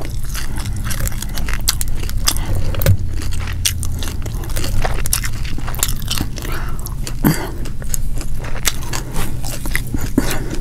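Close-miked chewing of fried striped bass, with many irregular wet clicks and small crunches, over a steady low hum.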